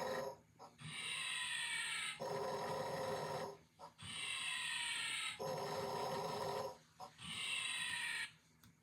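Snoring: rhythmic breaths, each with a high whistling part that falls in pitch, alternating with a lower buzzing part. Two and a half breath cycles with short pauses between them.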